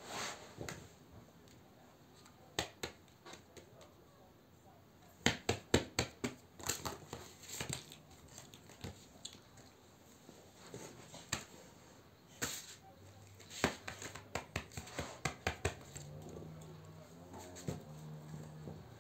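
Small objects being handled and set down on a sheet of paper: irregular clicks, taps and paper rustles as pens and small plastic slime tubs are picked up and put down, busiest about five seconds in and again from about thirteen seconds.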